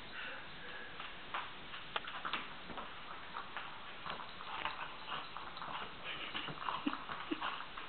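A flat-coated retriever puppy's claws clicking and scrabbling on a hardwood floor in irregular light taps and scuffs.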